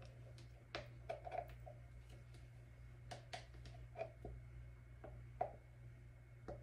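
Faint, irregular light clicks and taps of a plastic pitcher being handled in gloved hands while thick soap batter is poured from it into a plastic mixing bowl, about two or three a second, with a slightly louder tap about five seconds in, over a steady low hum.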